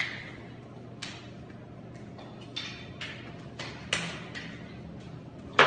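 Escrima sticks clacking against each other in a partner drill: about eight sharp, irregular strikes with brief echo, the loudest near the end.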